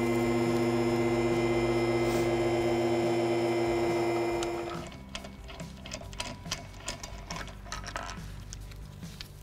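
Car lift's electric pump motor running with a steady, constant-pitch hum for about four and a half seconds, then cutting off. Faint clicks and rattles follow.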